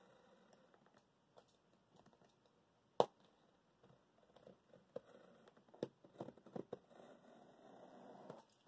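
A blade being drawn carefully along a cardboard shipping box to cut it open: faint scratching and scraping on the tape and cardboard, with a sharp click about three seconds in, a run of clicks a couple of seconds later, and a longer scrape near the end.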